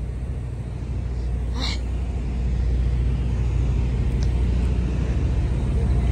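Steady low drone of generators running, with one brief higher-pitched sound about a second and a half in.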